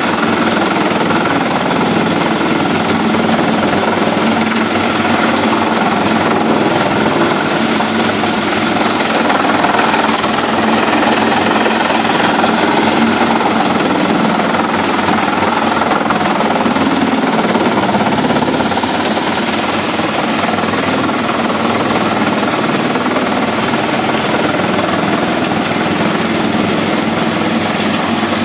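Pezzolato PTH 1000/1000 truck-mounted wood chipper running under load while chipping scrap timber, a steady, continuous drone of engine and cutting drum.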